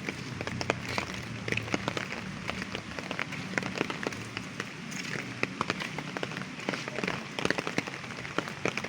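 Light rain, with drops falling irregularly and sharply ticking on nearby surfaces, over a steady hiss. A faint low hum runs underneath.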